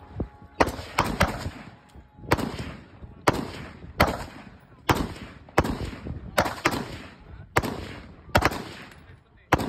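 Gunshots at an outdoor shooting range: about a dozen shots at uneven intervals, some in quick pairs, each followed by a trailing echo.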